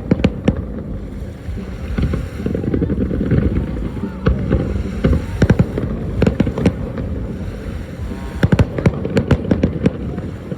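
Fireworks display: shells bursting in rapid, irregular bangs over a steady low rumble, with denser volleys about five seconds in and again near nine seconds.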